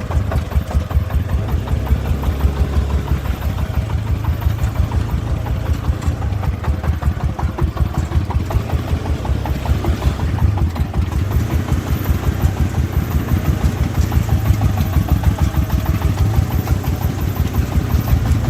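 Single-cylinder diesel engine of a công nông three-wheeled farm truck chugging at low speed, a fast, even beat of low thumps about six a second.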